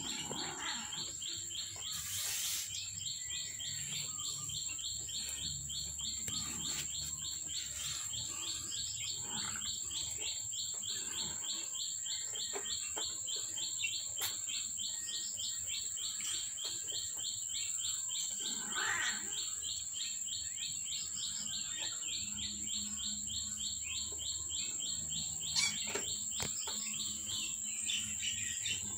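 Continuous fast, evenly repeating high chirping, with a steady high-pitched whine above it.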